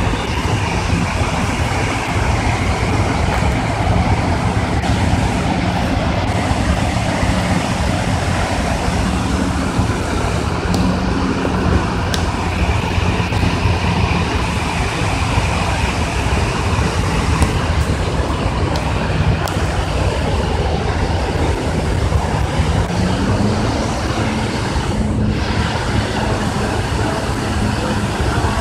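Muddy floodwater pouring out of a dam's open spillway gates after the reservoir level rose: a loud, steady rush of water.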